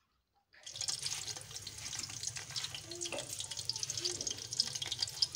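Sliced onions sizzling and crackling in hot ghee in an aluminium pot, starting about half a second in after a brief silence.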